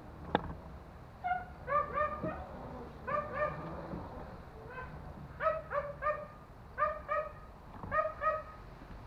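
A dog barking repeatedly: short, high-pitched yaps, mostly in pairs, about a dozen in all. A single sharp knock comes just under half a second in.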